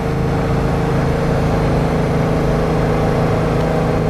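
R62A subway train running alongside the platform: a loud, steady low hum and rumble.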